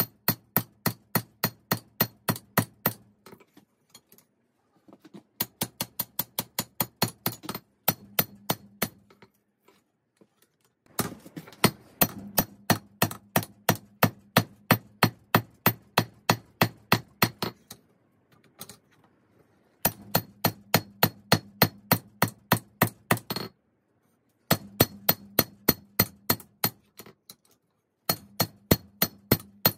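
Hammer blows forging a 5160 spring-steel blade, struck in quick even runs of about three blows a second with short pauses between runs; each blow rings sharply.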